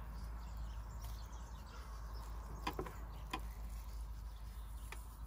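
Hands salting the inside of a raw gutted carp: a few faint clicks and taps over quiet outdoor background noise.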